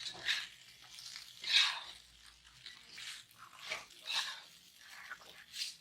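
Spatula scraping and turning fried rice, meatball and sausage in a frying pan, in uneven strokes about once or twice a second.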